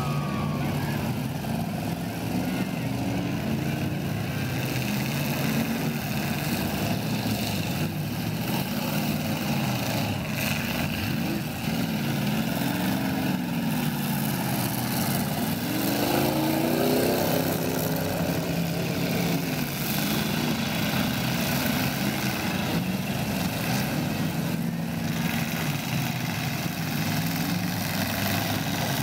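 Several demolition derby car engines revving up and down together, their pitches rising and falling, with a few short knocks of cars hitting one another.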